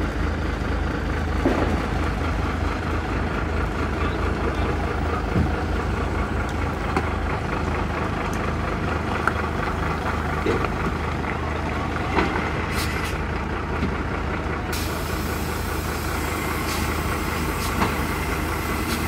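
Heavy diesel lorry engine running under load as the tractor unit pulls a fairground ride trailer slowly through mud, a steady low drone with a few brief knocks.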